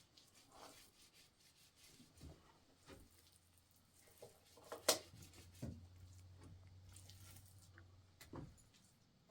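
Faint, scattered knocks and rubbing from objects being handled, with one sharper knock about five seconds in.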